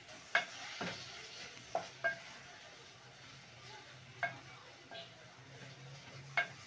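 Wooden spoon stirring tripe stew in a stainless steel pot, knocking against the pot several times at irregular intervals, each knock with a short metallic ring.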